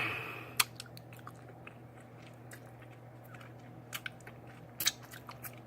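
Close-miked eating sounds: chewing with scattered wet mouth clicks and smacks, a few louder ones about half a second in and around four and five seconds in. It opens on the fading end of a burp, and a steady low hum runs underneath.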